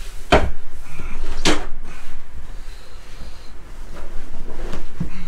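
Wooden dinette table sections being pushed together and knocking into place: two sharp knocks about half a second and a second and a half in, then lighter knocks near the end. A steady low rumble runs underneath.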